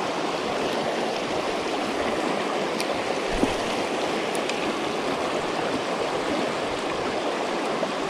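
River rapids rushing steadily over rocks, an even, unbroken wash of flowing water.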